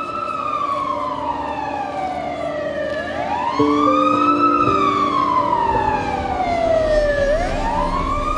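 Fire engine siren wailing, its pitch rising and then falling slowly, about one cycle every four seconds. About three and a half seconds in, lower steady tones join it and the sound gets louder.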